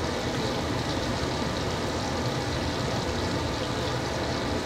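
Steady sizzle of hot frying oil.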